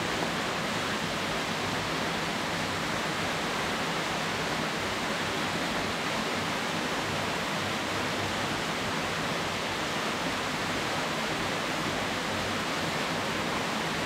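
Waterfall cascading: a steady, even rush of falling water.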